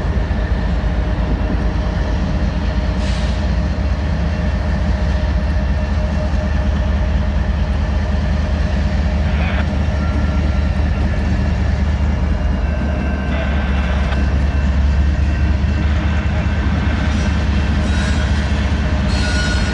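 Diesel locomotives, a CSX GE ES44DC (four-stroke V12) and a Union Pacific EMD SD70ACe (two-stroke V16), running with a deep steady drone as they pull a loaded coke hopper train slowly past, growing a little louder as they draw near. A few short high squeals come from the train.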